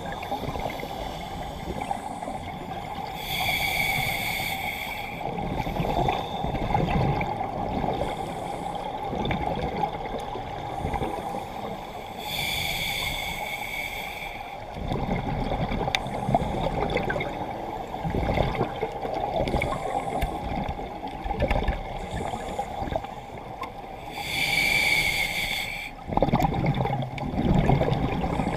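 Scuba diver breathing through a regulator, heard underwater: three hissing inhalations about ten seconds apart, each followed by a rumbling burst of exhaled bubbles, over a steady low hum.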